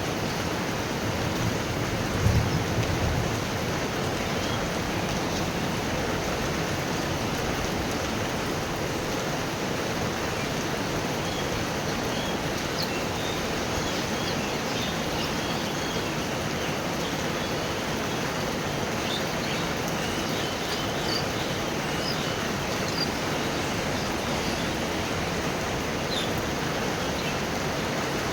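Steady heavy rain falling in a thunderstorm, a continuous even hiss. A brief low thump sounds about two seconds in, and faint short high chirps come and go in the second half.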